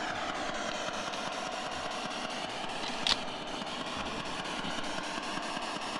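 Spirit Talker ghost box giving out a steady wash of static with rapid, evenly spaced ticks, with one sharp click about three seconds in.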